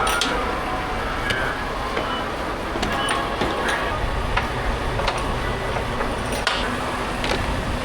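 Volvo semi truck heard from inside the cab while driving: a steady engine and road rumble, with scattered short clicks and rattles at irregular intervals.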